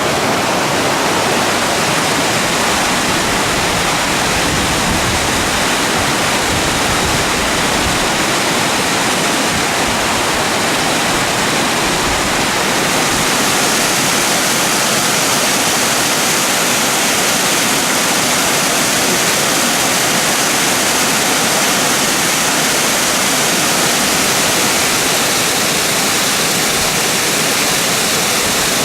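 Mountain waterfall pouring steadily, a dense, even rush of falling water. About thirteen seconds in, the sound turns brighter, with more hiss.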